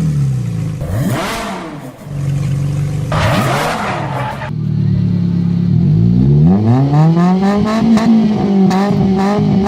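Suzuki Swift engine revved through a 4-inch HKS aftermarket exhaust muffler. Two short blips of the throttle about one and three and a half seconds in, each dropping back to idle. Then the revs climb about six seconds in and are held at a steady higher pitch.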